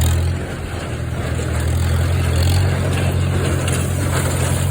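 Farmall M tractor's four-cylinder engine, fitted with a muffler, running steadily under load while pulling a Ford 532 hay baler.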